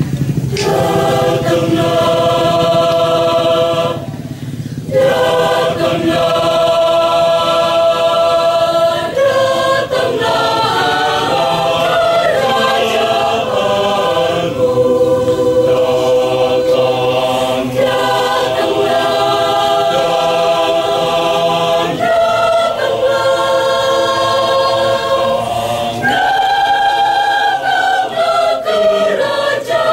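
A choir singing in parts, holding long chords that move from one to the next, with a brief breath break about four seconds in.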